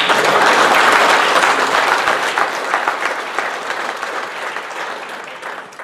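Audience applauding, strongest in the first second or two and dying away toward the end.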